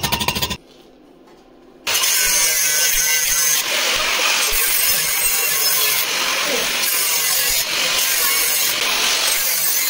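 Electric arc welding on a stainless steel balcony railing: a loud, steady hiss with no clear tone that strikes up abruptly about two seconds in. Before it there is a short rhythmic buzz that stops about half a second in, then a second's pause.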